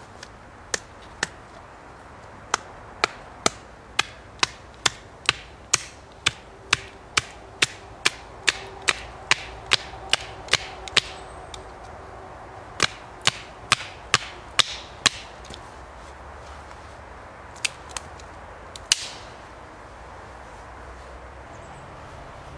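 Batoning: a wooden stick repeatedly knocking on the spine of a Kizlyar Supreme Ute folding knife to drive it lengthwise through a piece of wood and split it. Sharp knocks come steadily about two a second, pause briefly, then come in a short burst and two last strikes.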